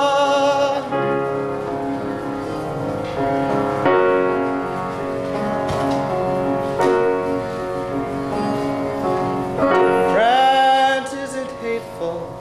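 Theatre-musical accompaniment with piano between sung lines of a show tune; a held sung note with vibrato ends under a second in.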